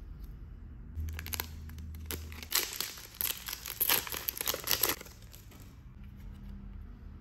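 Foil-lined Pokémon promo card pack being torn open and crinkled by hand. A dense run of sharp crinkles starts about a second in and lasts about four seconds.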